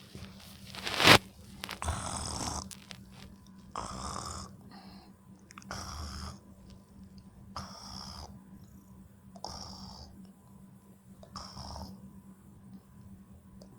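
A person snoring, one noisy snore about every two seconds, slowly getting fainter. A sharper, louder sound comes about a second in.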